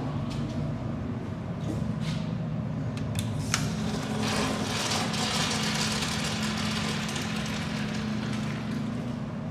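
A steady low mechanical hum with a few light clicks, and a hissing rush for a few seconds in the middle.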